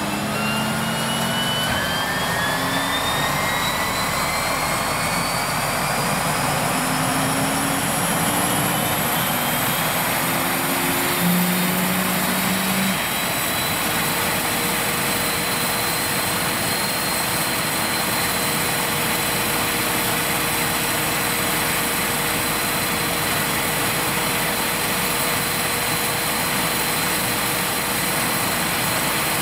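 Pratt & Whitney PT6-20B turboprop engine spooling up on start: a high turbine whine climbs in pitch over the first fifteen seconds or so, then holds steady as the engine settles at idle with the propeller turning. A broad rushing runs underneath throughout.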